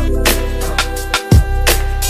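Hip hop style background music with deep bass, sustained synth tones and a drum beat, a heavy kick landing about once a second.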